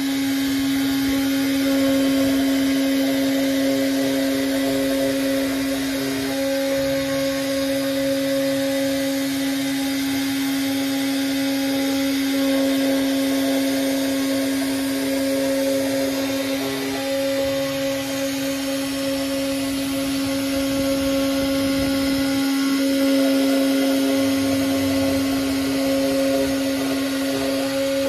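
DIY CNC router spindle running at a steady whine while a 3 mm end mill cuts slots into an aluminium heat sink block. A second, higher cutting tone comes and goes every few seconds as the tool works along the slots.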